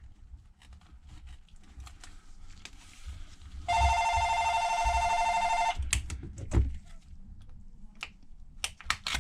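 A telephone rings for about two seconds in the middle, a steady electronic ring, with light clicks and taps before and after it.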